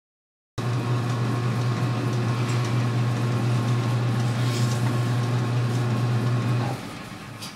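Metal lathe running steadily with a low motor hum, which starts abruptly about half a second in. Near the end the motor is switched off and the spindle coasts down, with a single click.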